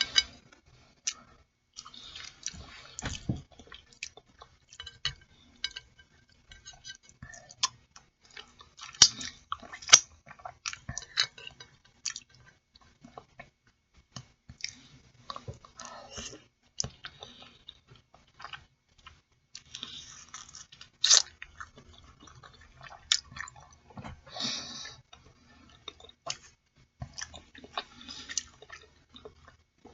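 Person eating boiled chicken feet, close-miked: chewing and mouth sounds, with irregular clicks and smacks as the tender meat is pulled off the bones.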